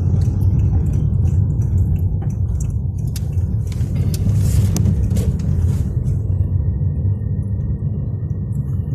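Steady low rumble of a moving car heard from inside the cabin: engine and road noise, with a few light clicks early on and a faint steady high tone joining about two-thirds of the way through.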